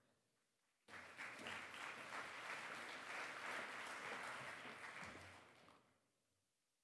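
Audience applauding after a speaker is introduced, starting about a second in and dying away after about five seconds.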